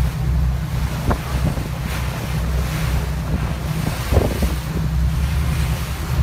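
Wind buffeting the microphone over a steady low rumble and the rush of water and waves, heard from aboard a moving boat at sea.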